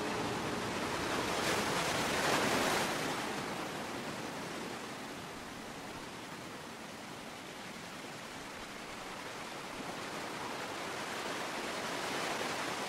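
Sea surf breaking and washing up a pebble shore, a steady rush that swells about two seconds in and again near the end.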